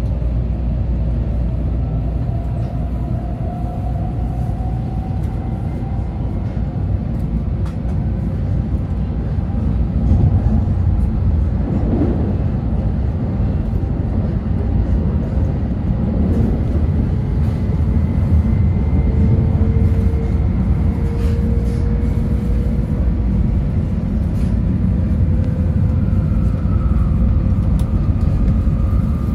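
Shinkansen bullet train heard from inside the passenger car as it pulls out of the station and gathers speed: a steady low rumble of the running train, with faint electric-motor whines slowly rising in pitch.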